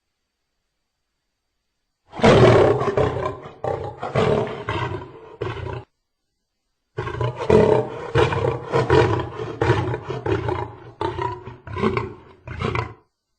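Lion roaring and snarling in two bursts. The first starts about two seconds in and lasts about four seconds. After a second's pause comes a longer, choppy stretch of growls that breaks into short snarls near the end.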